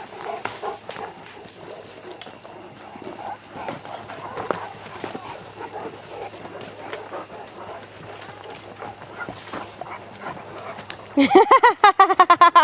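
Footsteps and rustling as people and several Great Danes move along a woodland trail through undergrowth. About a second before the end a loud, pulsing animal call breaks in.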